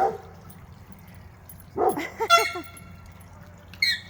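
Dog howling ('singing'): a short cry at the start, then about two seconds in a quick run of short rising-and-falling howls.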